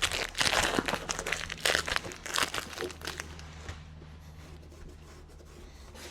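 Tape being peeled off a van's steel door and crumpled up: dense crinkling and tearing for about the first three and a half seconds, then only faint rustles.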